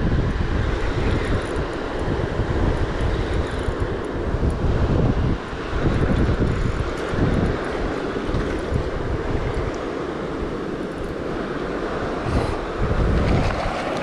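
River water rushing over rocks, a steady noise, with wind buffeting the microphone in gusts that swell and drop in a low rumble.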